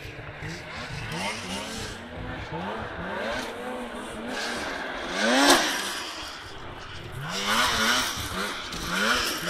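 Arctic Cat snowmobile engine revving as the sled is ridden around a cross track, its pitch sweeping up with each throttle burst and dropping back, over and over. The loudest burst comes about halfway through, and another loud stretch comes near the end.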